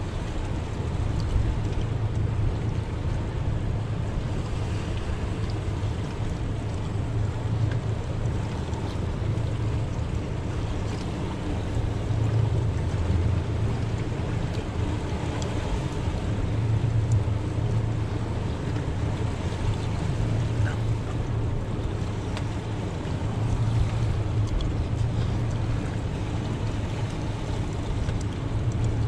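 Bay boat's outboard motor running steadily at low speed, a constant low hum, with wind on the microphone and water noise around the hull.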